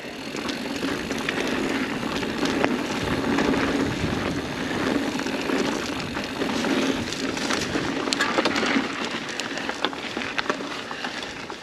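Mountain bike rolling along a dirt singletrack: tyre noise on packed dirt and dry leaves, with many small clicks and rattles from the bike.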